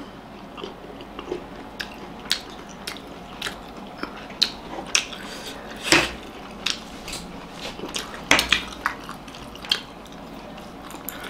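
Forks clicking and scraping on plates, mixed with close-up chewing and biting of steamed momo dumplings. The clicks come at irregular intervals, with the loudest about six seconds in and a cluster around eight seconds.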